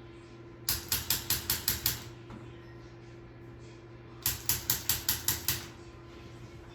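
Handheld Activator chiropractic adjusting instrument clicking in two quick runs of about seven sharp clicks each, about five a second, each click an impulse delivered to the child's back muscles.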